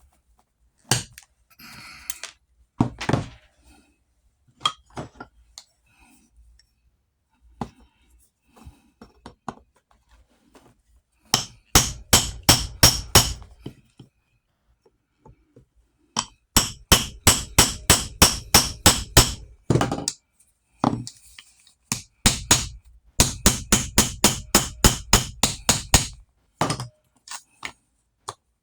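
Hammer strikes in three quick runs of about six blows a second, after a few single knocks.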